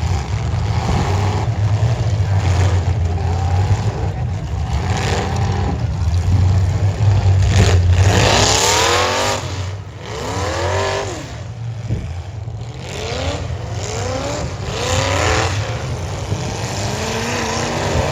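Demolition derby cars' engines running with a steady low rumble, revved hard four or five times from about eight seconds in, the pitch climbing with each rev.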